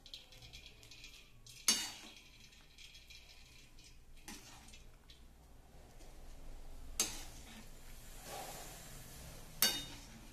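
Metal slotted spoon scooping boiled penne from a steel kadhai of water, with four sharp clinks about every two and a half seconds as it knocks against the pan and the mesh strainer. Soft scraping and water splashing sound in between.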